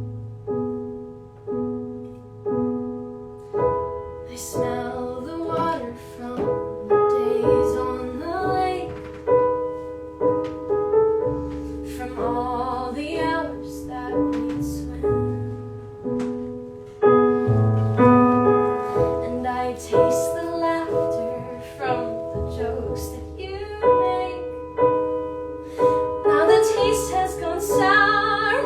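Piano accompaniment, with a female voice singing classical-style phrases with vibrato over it at several points.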